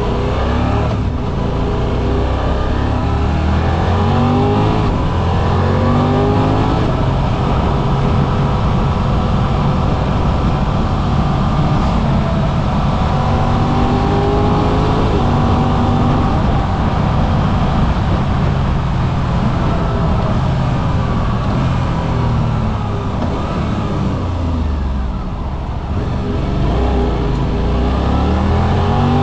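Suzuki V-Strom 800RE's parallel-twin engine under way, its note climbing through each gear and dropping at each change. It eases off briefly a few seconds before the end, then picks up again.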